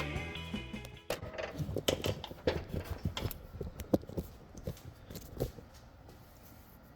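Rock music fading out over the first second, followed by a scatter of light, irregular clicks and knocks that taper off after about five seconds.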